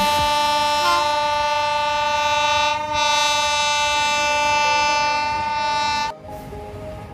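WAP-5 electric locomotive's air horn blowing a long steady blast, with a brief dip about three seconds in, then cutting off suddenly about six seconds in.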